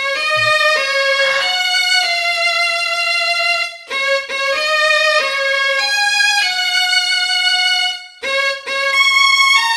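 Solo violin playing a slow melody of long, held notes, with short breaks about four seconds in and again about eight seconds in.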